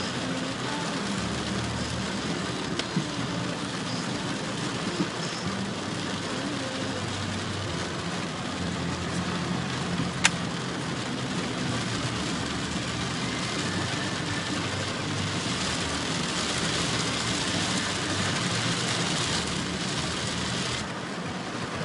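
Heavy rain hitting a car, heard from inside the cabin, with the engine running underneath. A single sharp click comes about ten seconds in, and the hiss grows louder for several seconds before dropping off suddenly near the end.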